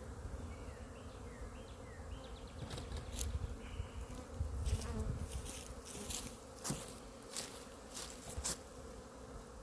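Honeybees buzzing steadily around an opened hive, with several sharp clicks or knocks in the second half.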